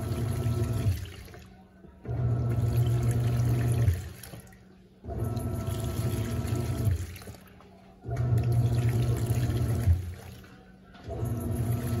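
Panasonic 14 kg top-load washing machine agitating a soapy load of rugs and cloths: the motor and pulsator churn the water in strokes of about two seconds with a short pause between, repeating about every three seconds, as the detergent is worked through and the load soaked.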